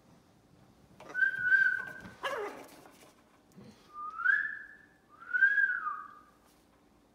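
Blue-and-gold macaw whistling. About a second in comes one held whistle, then a short rough squawk that slides down in pitch, then two rising whistles.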